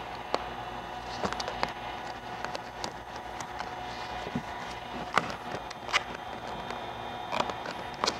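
Vinyl wrap film being pressed and worked by hand on a car door: scattered sharp ticks and light crackles, a few seconds apart, over a steady hum.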